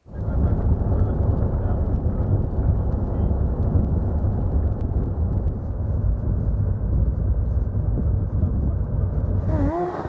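Steady low rumble of a safari truck driving, with wind buffeting the microphone. It cuts off suddenly just before the end.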